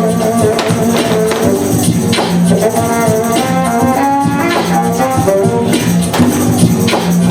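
Live band music: sustained instrument notes over a steady rhythm of percussion hits.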